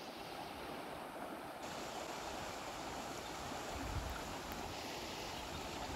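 Steady rushing of river water at the bank, with a brief low thump about four seconds in.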